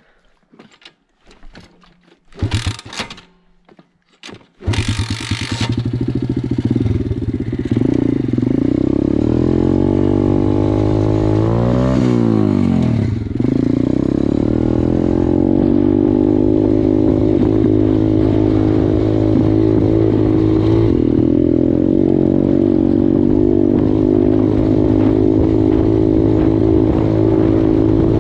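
KXD 612 Pro pit bike's small four-stroke single-cylinder engine started up about four and a half seconds in after a couple of sharp clanks, then running under way as the bike is ridden; its engine speed dips and rises about halfway through, then holds steady.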